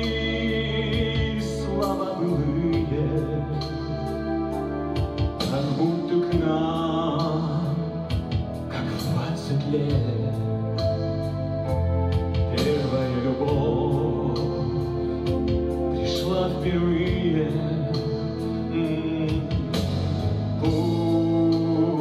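A man singing over instrumental accompaniment with held bass notes.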